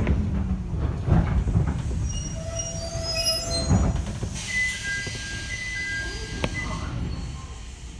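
Jōmō Electric Railway 700 series electric train braking to a stop, heard from inside the car: a low motor tone falls at the start, with rumble, clunks and thin squeals from the wheels and brakes. About four seconds in, as it comes to a standstill, a steady air hiss sets in with short high tones, and there is a single click near the end.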